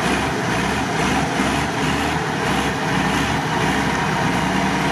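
Mercedes-Benz Unimog truck engine running steadily as the truck, bogged axle-deep in mud, is winched out. A low rumble comes and goes for the first few seconds, then holds steady.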